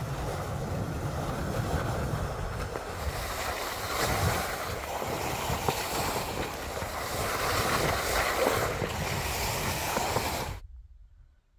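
Skis sliding and scraping over rough, sun-cupped summer snow, a continuous coarse hiss that swells and eases with the turns, over wind buffeting the microphone. It cuts off abruptly near the end.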